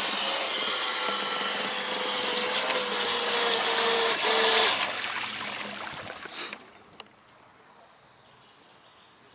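Electric RC speedboat running fast across the water: a steady motor whine over the hiss of spray, rising a little about four seconds in and fading out about six seconds in.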